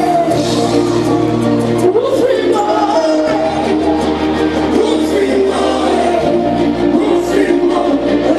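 Live gospel music: a band with held keyboard chords and bass, and a singing voice over it.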